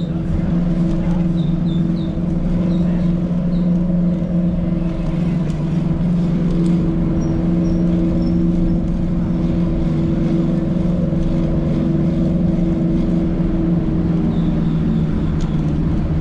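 Steady hum of motor vehicle traffic, with a rough low rumble underneath and a few short high chirps.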